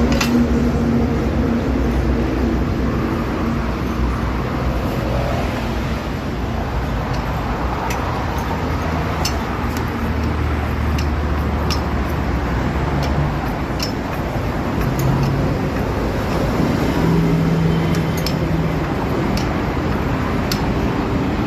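Motor vehicle engines running amid steady road-traffic noise, their low hum shifting in pitch now and then, with scattered light clicks.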